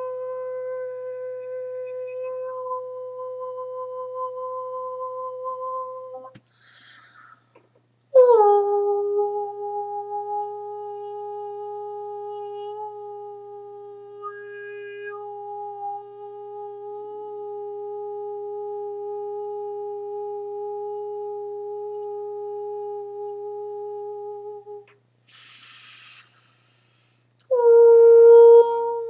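A woman toning with her voice: long, steady hummed notes. After a breath, a lower note slides down into place and is held for about sixteen seconds, and after another breath a third, higher note begins near the end.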